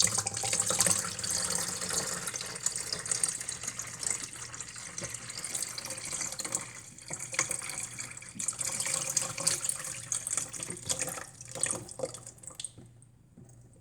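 Water being poured into a Cuisinart coffee maker's water reservoir, a running, splashing stream with small knocks; it stops about a second before the end.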